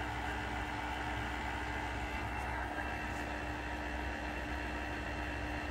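Enshu F2 horizontal milling machine's spindle running unloaded at 530 rpm: a steady, even machine hum with a faint steady tone through it.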